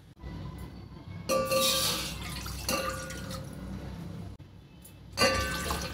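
Water poured from a jug into an empty stainless steel pot, splashing on the metal bottom, which rings faintly. The pour comes in three surges: about a second in, near three seconds, and near the end.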